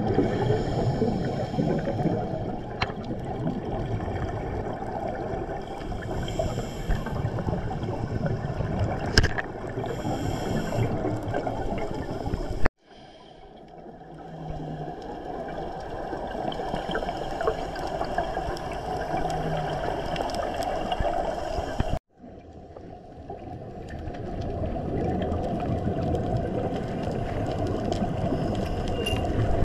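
Underwater ambient noise picked up through a dive camera's housing: a steady low rush of water. It cuts out suddenly twice and builds back up over a few seconds each time.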